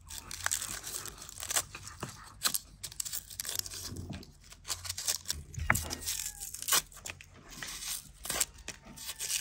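Onions being peeled with a small knife: dry, papery skins tearing and crackling off in short, irregular strokes as the blade catches and cuts into the outer layers.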